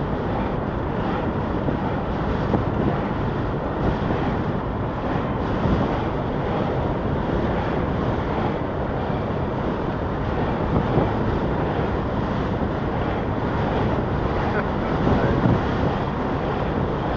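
Steady wind rush on the microphone over road and engine noise from a vehicle driving on a tar road, with a few brief swells as oncoming Land Rovers pass close by.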